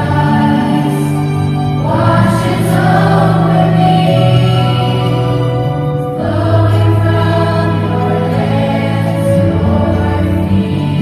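Youth choir singing with musical accompaniment, sustained low notes underneath that shift to new chords every few seconds.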